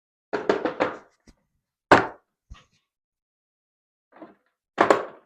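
Hand tools being handled in a hard plastic tool case: a quick rattle of clacks, then a few separate sharp knocks, the loudest about two seconds in and another near the end.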